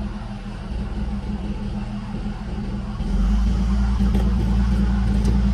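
Heavy military vehicle engine running steadily, becoming louder with a deep rumble about three seconds in.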